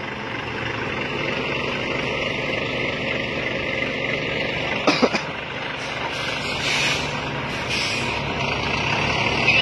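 Heavy diesel tanker trucks running steadily on a mountain grade, with short hisses of compressed air from the air brakes about six and eight seconds in. There is a brief, sharp sound about five seconds in.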